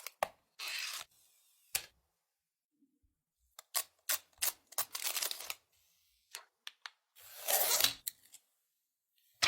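Product packaging being handled and opened: scattered clicks and taps with short bursts of rustling, the longest and loudest about seven to eight seconds in.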